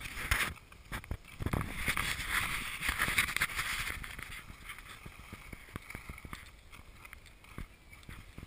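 Skis sliding and scraping over snow in a steady hiss, loudest about two to four seconds in, with a few knocks in the first second and a half.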